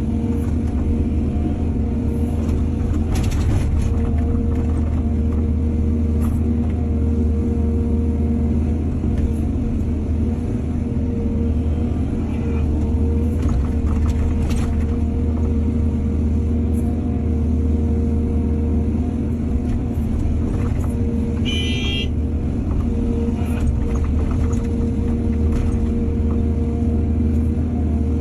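Excavator's diesel engine running steadily, with a few knocks and clanks of the working machine and one short high-pitched squeal about three quarters of the way through.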